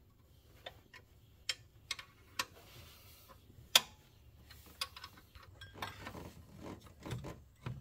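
Scattered light clicks and clinks of metal hand tools and fasteners on engine parts, with one sharper clink about halfway through.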